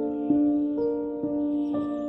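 Soft instrumental background music, with held notes changing about every half second.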